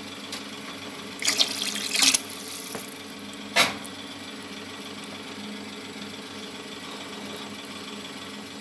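Water running briefly from a tap for about a second, then a single sharp knock, over a steady low hum.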